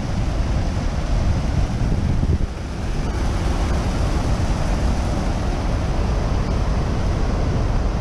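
Water rushing steadily over a concrete spillway dam, with wind buffeting the microphone in a low, steady rumble.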